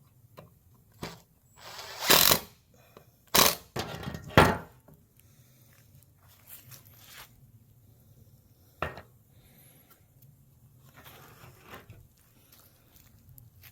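Wooden pieces knocked and set down on a wooden base: three loud knocks about a second apart, with lighter taps and scraping around them and one sharp click later on.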